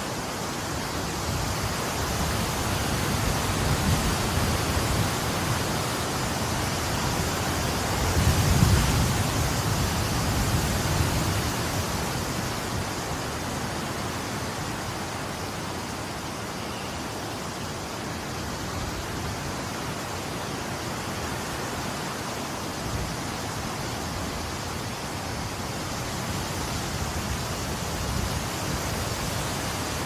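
Wind blowing as a steady rushing hiss, with a low rumbling gust that swells to its strongest about eight to nine seconds in, then eases to a steadier, quieter rush.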